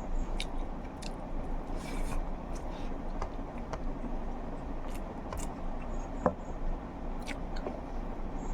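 A person eating a meal of egg curry: chewing, with scattered small clicks and scrapes of food being handled, and one sharper click about six seconds in.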